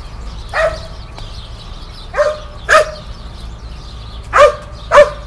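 Dutch Shepherd barking sharply five times at uneven intervals: a search dog's bark alert at a person hidden in a bark barrel.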